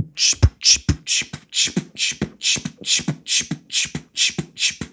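Vocal beatboxing of a house-style electronic dance beat. Hissing hi-hat sounds come about four times a second over low kick-drum thumps about twice a second.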